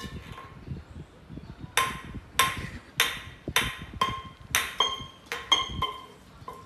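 A small tin can knocking and clattering on a concrete floor as a rat drags it along. About a dozen sharp knocks, each with a short metallic ring, come roughly every half second from about two seconds in.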